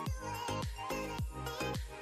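Background music with a steady beat, about four drum hits a second, under held melodic notes.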